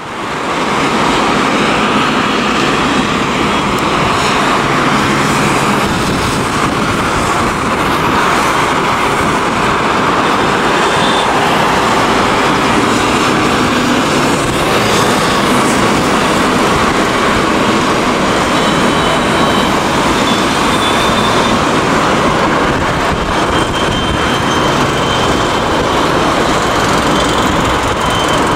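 Airbus A320-family twin-jet airliner climbing out after takeoff, its engines at high thrust making a loud, steady jet noise. The noise fades in from silence at the start, and a faint high whine comes and goes later on.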